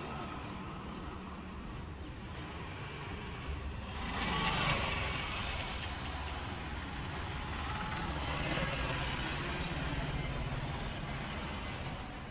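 Road traffic running steadily, with vehicles passing, one swelling up about four seconds in and another from about eight seconds.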